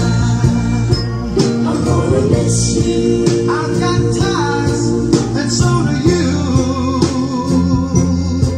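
Music playing: a song with singing over guitar and a steady beat.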